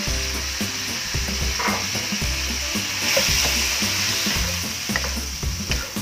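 Shrimp and squid sizzling in a hot wok as a wooden spatula stirs them. The sizzle swells about three seconds in, and the spatula gives a few light taps against the pan near the end.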